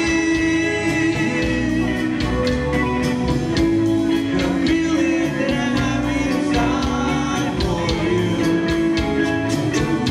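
Live band playing with voices singing: electric guitars, drum kit and Latin percussion over a steady beat.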